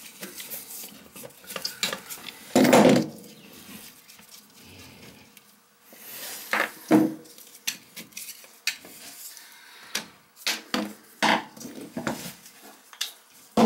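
Metal clinks and knocks as a socket is worked off a toilet's closet-bolt nut, and the nut and tools are set down on a tile floor. There is a heavier knock about two and a half seconds in and scattered sharp clicks after it.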